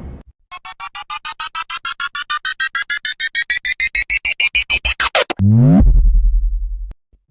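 Synthesized sound effect: a rapid stream of pulsing electronic tones, about eight a second, climbing steadily in pitch and growing louder, then a quick sweep and a short low buzz that cuts off about seven seconds in.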